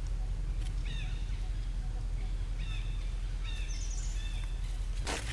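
A bird chirping in short repeated calls, four or five of them spread over a few seconds, with a brief higher trill among them, over a steady low rumble. A short burst of noise comes near the end.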